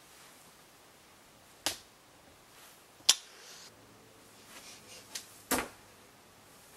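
A few short, sharp knocks and clicks in a quiet small room, the loudest about three seconds in, with a brief rustling burst near the end.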